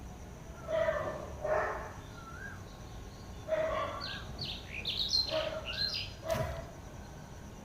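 Wild birds calling: a series of short calls, a wavering whistled note, and a quick run of high chirps between about four and six seconds in.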